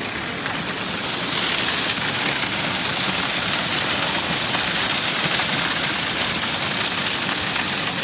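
Small waterfall pouring down a rock face and splashing into a shallow pool, a steady rush of falling water that grows louder and hissier about a second in.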